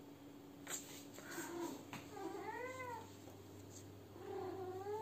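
Domestic cat meowing: two long, drawn-out meows, each rising then falling in pitch, one about two seconds in and another near the end.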